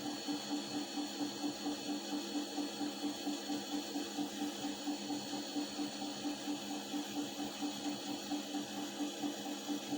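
Washing machine running: a steady motor hum with a rhythmic pulsing noise about four times a second, the strange noise the owner hears during the wash cycle.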